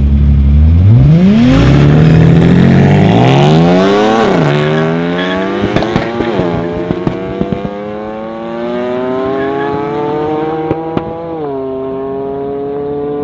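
Tuned car launching from a standstill in a half-mile drag run: the engine is held at steady revs, then climbs hard through the gears, with upshifts about four, six and a half and eleven seconds in and sharp bangs around the shifts, growing fainter as it pulls away.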